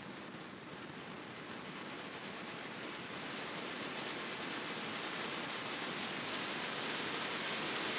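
Standard Fireworks Traffic Cones fountain burning: a steady rushing hiss as it jets silver sparks, growing gradually louder.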